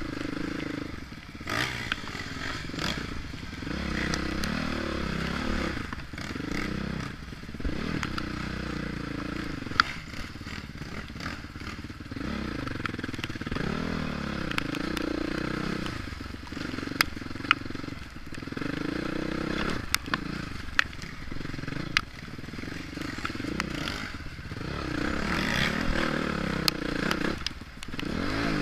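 Two-stroke dirt bike engine revving up and falling back again and again as the throttle is worked, with scattered sharp clacks and knocks from the bike over rough ground.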